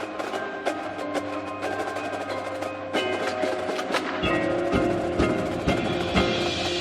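Percussion ensemble music: mallet keyboards ring out sustained pitched notes over quick wood-block-like clicks. About four seconds in, heavy drum strokes come in.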